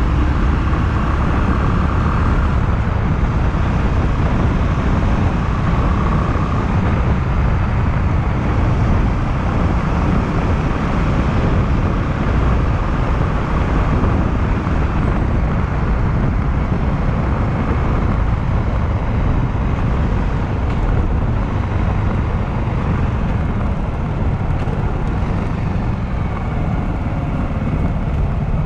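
Honda Clubman single-cylinder motorcycle engine running steadily on the move, mixed with a steady rush of wind noise on the microphone.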